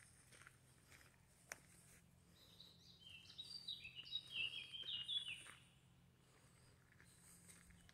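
A songbird singing one phrase of quick, high notes that step downward in pitch, from about two to five and a half seconds in, over a faint steady low hum.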